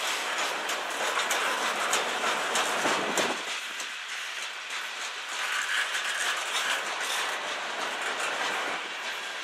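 Covered hopper cars of a passing freight train rolling by: steel wheels clicking over rail joints amid a steady rolling clatter.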